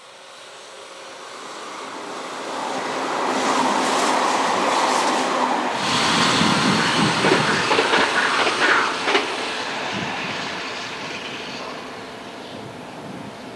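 Electric train passing at speed: a rush of air and running noise builds up, then a quick run of wheel clatter over the rail joints with a low rumble for a few seconds, fading away near the end.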